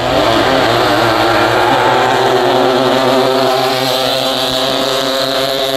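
Single-cylinder racing boat engines at full throttle, running a steady high engine note that wavers slightly as the boats race down the course.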